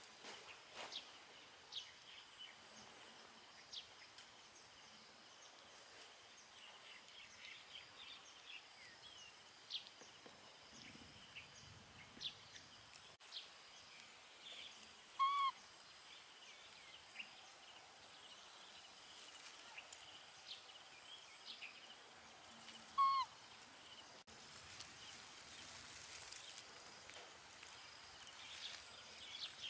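Open-air field ambience with frequent faint, high bird chirps, and two short, louder pitched calls, one about halfway through and another some eight seconds later.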